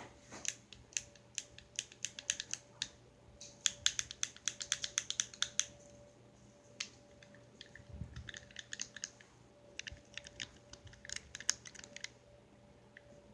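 Plastic fidget cube being clicked by hand: runs of small sharp clicks, the fastest burst a few seconds in at several clicks a second, with shorter runs in the middle and near the end.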